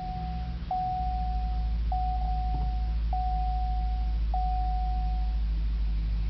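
The Cadillac CTS-V's supercharged 6.2-litre V8 catches about a second in and settles into a steady low idle, while a dashboard warning chime sounds one tone over and over, about once a second, stopping about five seconds in.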